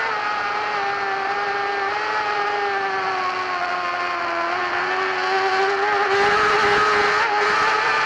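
Racing motorcycle engine held at high revs, heard from an onboard camera, with wind and road noise behind it. Its pitch stays nearly level, dipping slightly about halfway through, then picks up and grows a little louder near the end.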